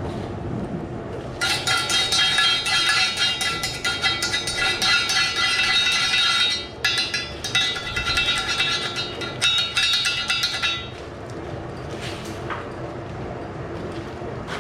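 Oxy-fuel cutting torch cutting through steel with a whistling jet and dense crackling and popping. It stops briefly about seven seconds in, cuts again until about eleven seconds, then only a quieter steady hiss is left.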